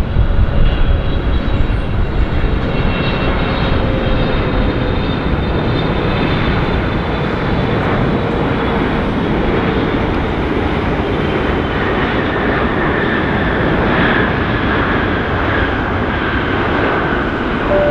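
Boeing 777-300ER's twin GE90 turbofans on landing: a steady, loud jet engine noise with whine tones that slowly fall in pitch. A higher whine comes in about two-thirds of the way through as the airliner rolls out on the runway after touchdown.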